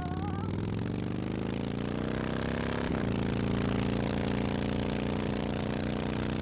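An engine running steadily at a low, even pitch that rises slightly over the first two seconds and then holds, with a single click about three seconds in.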